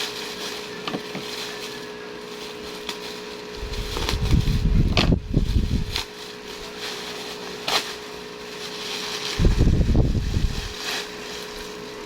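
Parcel packaging being handled and opened: scattered taps and clicks, with two longer bouts of heavy rubbing and rustling handling noise, about four and nine and a half seconds in, over a faint steady hum.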